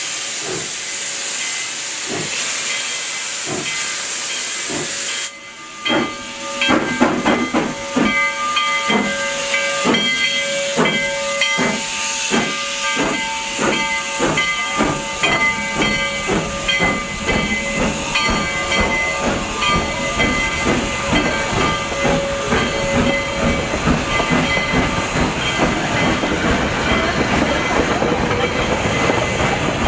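Steam locomotive's cylinder cocks venting with a steady loud hiss as it starts off; the hiss cuts off suddenly about five seconds in. The engine and its cars then roll slowly past, with regular clanks and clicks from the wheels and running gear and shrill squealing tones that come and go.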